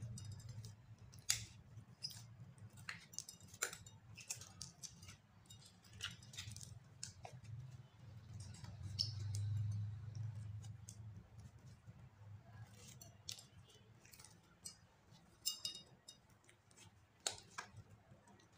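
Glitter-filled clear slime squeezed and kneaded by hand in a glass bowl, giving irregular soft clicks, pops and crackles as air pockets burst. A low hum sits underneath and swells briefly near the middle.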